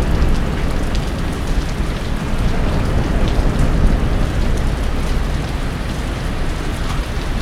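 Heavy rain falling, a loud steady rushing hiss with no breaks.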